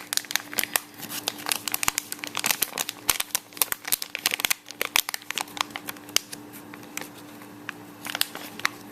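Plastic anti-static bag crinkling in the hands as the WiFi card is unwrapped: dense crackling for about five seconds, then only scattered crackles.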